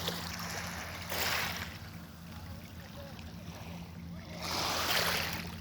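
Sea water rushing and splashing in two swells, one about a second in and one near the end, over a steady low hum.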